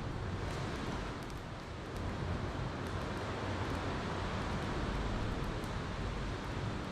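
Ocean surf washing in steadily, swelling a little about two seconds in, with faint campfire crackles over it.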